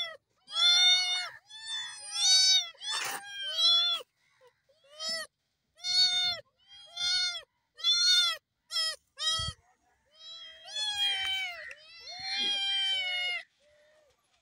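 A kitten meowing over and over, about a dozen high-pitched calls, each rising then falling in pitch, with two longer drawn-out meows near the end.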